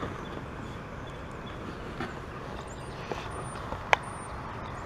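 Light knocks and rustles of handling in a kayak over a steady outdoor hiss, with one sharp click about four seconds in.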